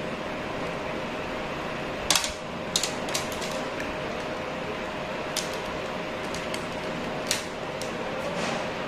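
Scattered small clicks and taps from handling an LED string light and its test needles, about ten in all and the loudest two about two and seven seconds in. They sit over a steady hiss with a faint steady tone underneath.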